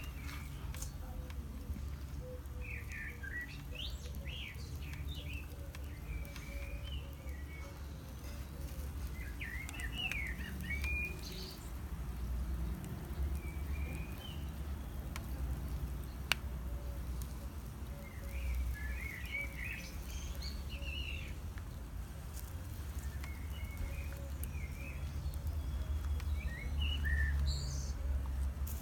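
Small birds chirping in several scattered bursts over a low steady rumble, with a single sharp click about halfway through.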